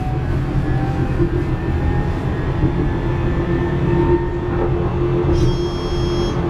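Inside an Alstom RegioCitadis tram under way: a steady rumble of wheels on rail with a steady hum and a fainter motor whine slowly rising in pitch as the tram gathers speed. About five seconds in, a high ringing squeal starts and holds.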